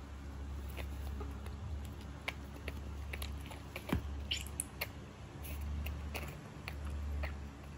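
Baby monkey moving about and handling things close by: scattered small clicks and taps, with a brief high squeak about four seconds in.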